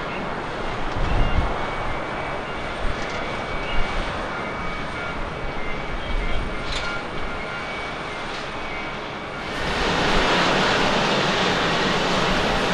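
Jet engines of a Boeing 787-10 climbing out after takeoff, a steady rushing noise. About nine and a half seconds in it switches abruptly to a louder, hissier jet noise from an Airbus A321 taxiing.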